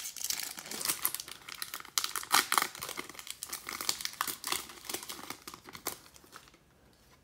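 Foil wrapper of a Topps Series 2 baseball card pack being torn open and crinkled as the cards are pulled out: a run of irregular crackles that stops about six and a half seconds in.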